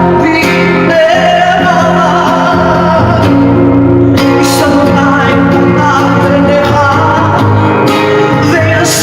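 Music with singing over instrumental accompaniment, loud and continuous.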